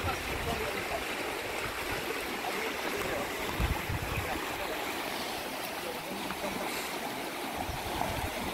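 Shallow river water running and rushing steadily over a stony bed. A dull low bump comes about three and a half seconds in.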